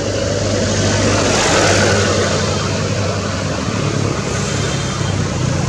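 A motor engine running with a steady low hum under a broad rushing noise, swelling to its loudest a second or two in and easing off a little after.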